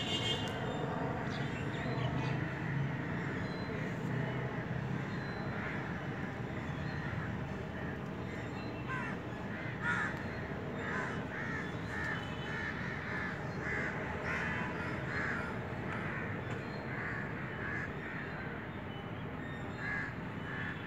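Bird calling outdoors: short calls repeated in quick runs of several a second, thickest through the second half, over a steady low background rumble.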